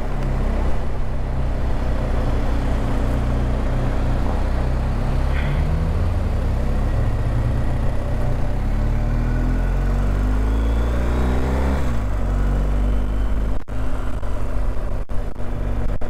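BMW R1250GS Adventure's boxer-twin engine pulling at low speed, its pitch climbing steadily from about six seconds in as the bike accelerates, then levelling off. A few brief dropouts in the sound near the end.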